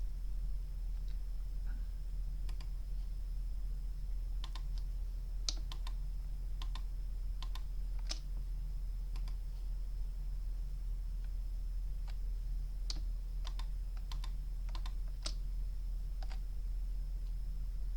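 Irregular clicks of computer keyboard keys and a mouse, singly or in small clusters, over a steady low electrical hum.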